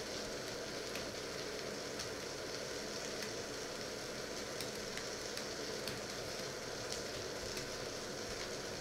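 Water heating in a covered stainless-steel pot on an electric hob: a steady hiss with scattered faint ticks and crackles.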